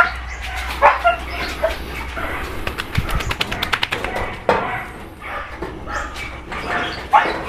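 Young dachshund dogs giving short yips and barks every second or two, with a quick run of clicks around three seconds in.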